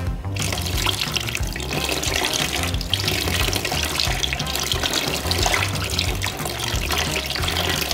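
Water poured in a steady stream from a plastic bottle over a suede boot, running off the water-repellent-treated suede and splashing into a plastic tub below. Background music with a steady bass line underneath.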